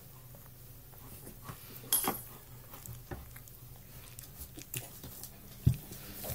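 Old English Sheepdog puppies moving about on bedding in a whelping box: scattered soft scuffs and knocks, a brief louder burst about two seconds in, and a sharp low thump near the end.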